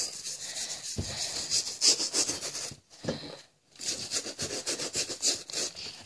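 Toothbrush bristles scrubbing the rubber rim of a canvas Converse sneaker with a baking soda solution, in rapid back-and-forth strokes with a short pause about halfway through.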